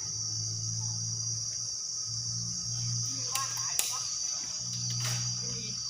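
Steady high-pitched insect chorus, with a low hum that comes and goes and a few sharp clicks in the second half.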